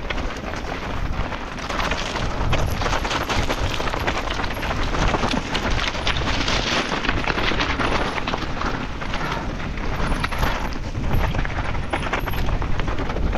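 Mountain bike descending fast over rough ground, with wind buffeting the microphone and a continuous dense clatter of tyres, stones and bike rattle.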